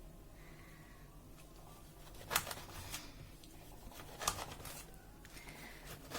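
A kitchen knife cutting an orange into pieces: a few sharp knocks of the blade coming down, two of them louder, about two and a half and four and a quarter seconds in.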